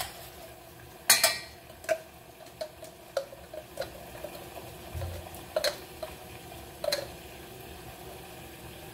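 A metal spoon clinking and scraping against a small glass jar and a stainless steel saucepan, with scattered sharp taps about a second apart, as contents are knocked and scraped out of the jar into the pot.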